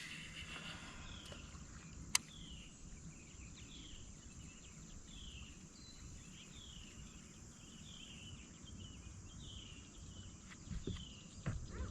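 A bird calling over and over with a short falling note about once a second, over a steady high insect-like hiss of lakeside ambience. There is one sharp click about two seconds in and a couple of soft knocks near the end.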